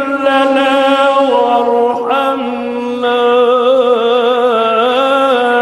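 A man reciting the Qur'an in the melodic mujawwad style, sung into a microphone. One unbroken phrase of long, ornamented notes that step in pitch and waver in the second half.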